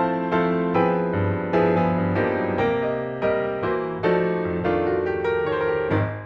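Background piano music: a gentle melody of struck notes, each starting sharply and fading.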